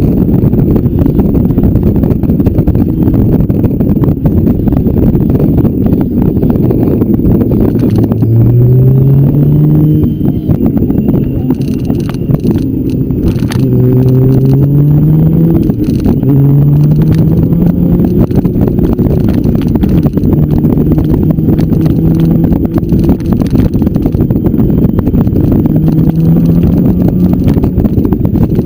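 Motorcycle engine pulling through the gears, its note rising in pitch several times from about eight seconds in, over heavy wind rush on the microphone.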